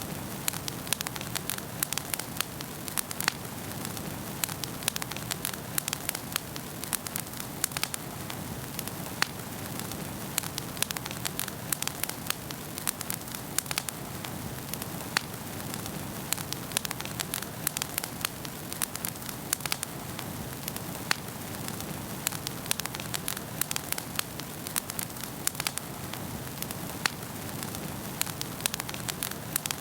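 Wood fire burning in a fireplace, crackling: a steady hiss with many sharp, irregular pops and snaps.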